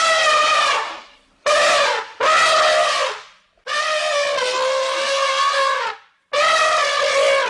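Elephant trumpeting: five calls in quick succession, the fourth the longest at about two seconds, each starting and stopping abruptly with short silences between.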